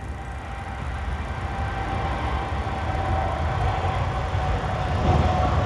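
Air Canada Boeing 787-9 jet engines at takeoff power, a deep rumble with a steady whine, growing steadily louder.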